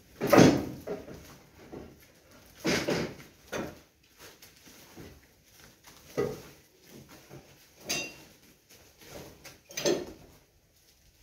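A series of separate scrapes and clatters, about six in all with the first the loudest: broken brick and plaster rubble being scooped up and dropped into a woven plastic rubble sack.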